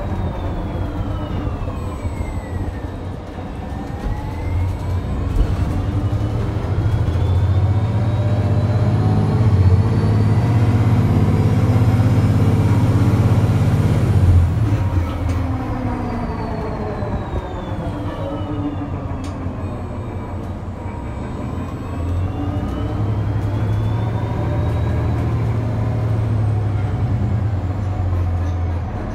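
Transit bus ridden from inside: a steady drivetrain hum and low rumble, with a whine that twice glides down in pitch and then back up. The low rumble swells in the middle and again near the end.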